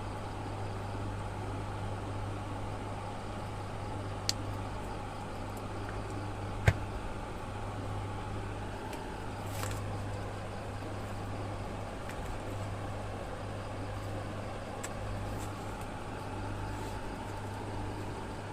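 Steady low electrical hum with two sharp clicks, the louder one about seven seconds in.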